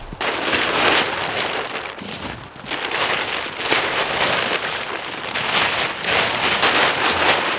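Wind gusting, rising and easing in three long surges.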